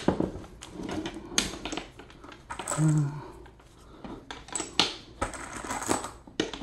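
Brass .223 cartridges clinking as they are picked from a cardboard ammo box and clicked one at a time into a rifle magazine through a magazine speed loader: a string of irregular sharp clicks and light metallic taps.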